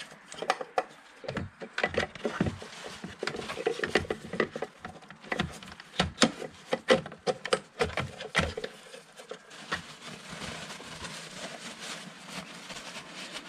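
Paper towels rustling and crinkling, with many irregular clicks and knocks, as they are packed around a car engine's oil filter housing. The knocks thin out about nine seconds in, leaving a quieter rustle.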